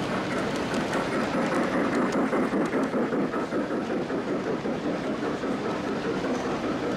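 Model train running along a layout's track, a steady dense rattle of wheels on rail.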